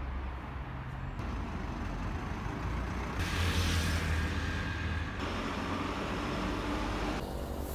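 City road traffic: passing vehicles' engines and tyres over a steady low rumble, louder and brighter for a couple of seconds in the middle.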